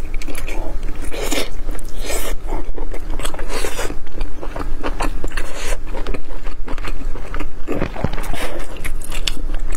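Close-miked biting and chewing of braised pork belly: soft, wet bites and smacking mouth sounds, many irregular clicks in a row.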